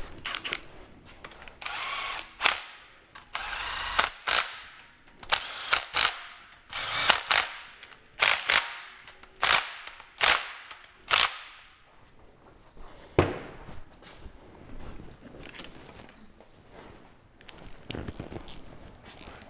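Cordless power tool, an impact driver or electric ratchet, run in a string of short bursts, about a dozen over ten seconds, driving bolts into an LS engine block on a stand. Near the end it gives way to a few faint clicks of handled parts.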